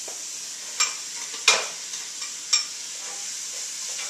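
Chopped vegetables sizzling as they sauté in hot olive oil in a metal pot while being tipped in and stirred. Three sharp knocks against the pot come in the first half, the loudest about a second and a half in.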